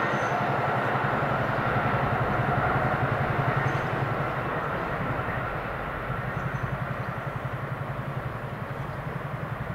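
Car-carrier freight wagons rolling away at speed, a fast, even rumble of wheels on rails that fades steadily as the train recedes.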